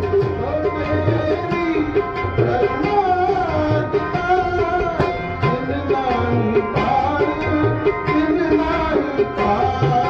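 Devotional music: tabla playing a steady beat under held melodic notes and a singing voice whose pitch bends up and down.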